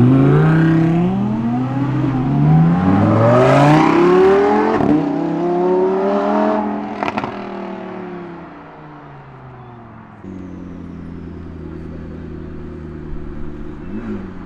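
A car engine accelerating hard, its note rising and falling several times as it pulls away, then fading away. About ten seconds in, a steady engine note starts up, like an engine idling.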